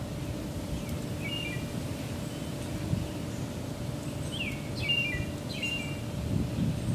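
Short high chirping calls, each dropping in pitch and then held briefly: a pair about a second in and a quick run of several around five seconds in. Under them runs a steady low outdoor rumble with a faint hum.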